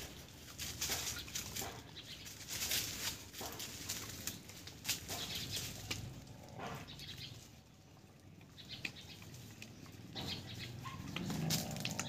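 Outdoor ambience of irregular rustling and crackling clicks, with a brief pitched animal call near the end.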